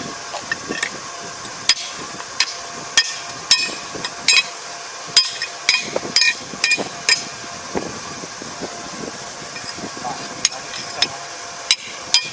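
Hammer striking steel: a run of sharp, ringing metallic blows, irregularly spaced at one or two a second with a pause of a couple of seconds in the second half. A bent reaper claw of a Yanmar ER470 combine is being hammered straight.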